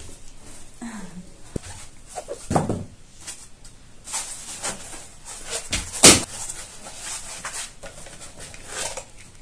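Cardboard box and foam packing being pulled off a small amplifier: rustling and scraping handling noises with brief squeaks, and a sharp knock about six seconds in.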